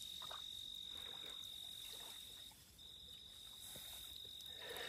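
Faint night ambience with a steady high-pitched insect trill, which breaks off briefly around the middle.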